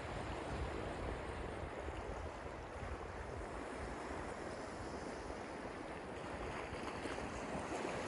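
Small ocean waves washing in over sand and around rocks, a steady surf wash that swells near the end as a wave breaks.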